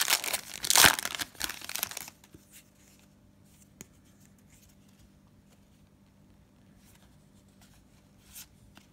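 A trading-card pack wrapper being torn open, crinkling for about the first two seconds. After that it is quiet apart from a few faint clicks.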